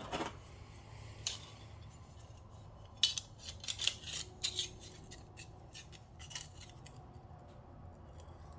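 Light metallic clicks and scrapes from the parts of a Stanley Bailey No. 7 hand plane being handled and adjusted. The clicks come singly at first, then cluster about three to five seconds in.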